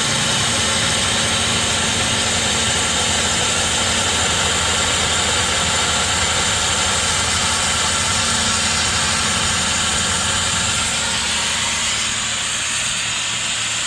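Tormach PCNC 440 CNC mill running, its spindle turning steadily while it takes a light skim cut of about five thousandths, with a steady hiss. The sound eases slightly near the end.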